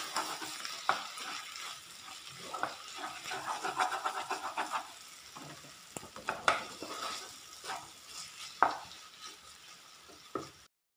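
Clam meat frying in oil in a pan, sizzling while it is stirred with a wooden spatula, the spatula scraping and knocking against the pan every second or two. The sound cuts off just before the end.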